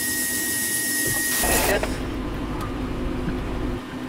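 Machinery inside a manned submersible: a steady hiss with a thin high whistle, which about one and a half seconds in gives way to a low, steady hum.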